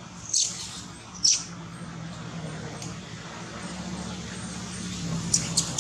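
Baby macaque giving short high squeaks: two sharp ones that drop in pitch, about half a second and a second and a half in, then a quick run of squeaks near the end, over a steady low hum.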